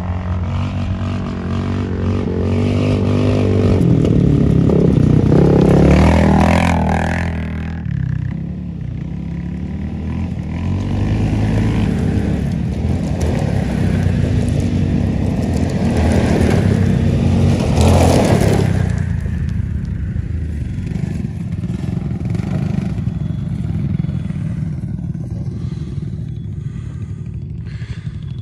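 Several ATV engines running as the quad bikes ride past on a dirt track, loudest about 6 seconds in and again around 18 seconds in as they come close, then settling to a lower steady rumble.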